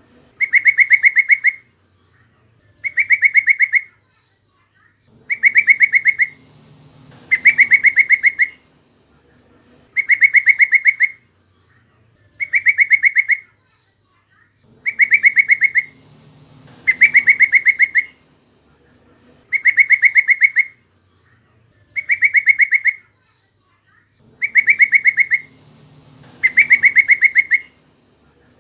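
Yellow-vented bulbul (trucukan) calling: a loud, rapid chattering phrase about a second long, repeated over and over at an even pace of roughly one every two and a half seconds, each phrase the same as the last.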